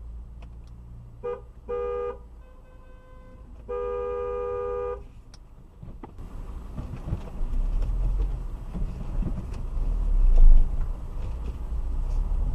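Car horn honking twice briefly, then held for about a second and a half, in two tones. Afterwards engine and road noise rise as the car drives off.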